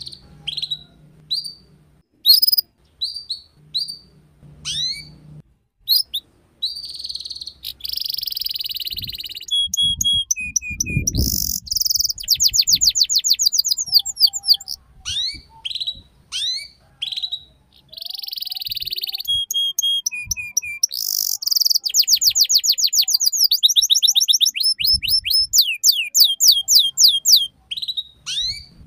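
Canary singing: a run of short rising chirps, then a song of buzzy phrases, clear whistled notes and fast rattling trills, heard twice. This is 'ngeriwik' song of the kind played as a lure to teach young canaries. A low thump comes about eleven seconds in.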